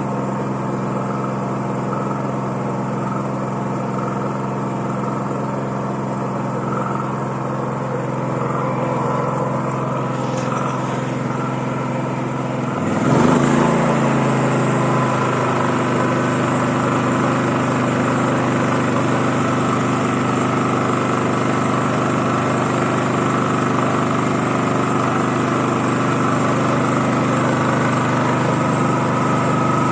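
Small portable generator engine running steadily. About 13 seconds in it changes speed with a sudden jump in loudness, then settles into steady running again.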